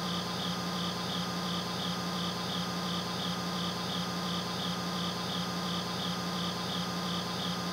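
Steady humming drone with a soft, high pulse repeating evenly about three times a second.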